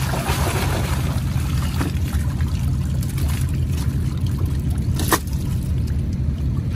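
Water pouring and trickling, loudest in the first second, over a steady low motor drone. A single sharp click about five seconds in.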